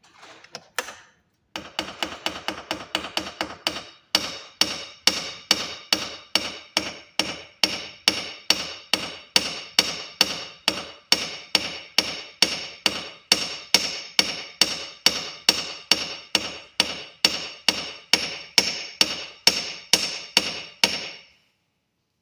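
Hammer blows on copper wire, flattening the wire for a pendant: a few seconds of lighter quick taps, then steady, evenly spaced harder blows about twice a second that stop shortly before the end.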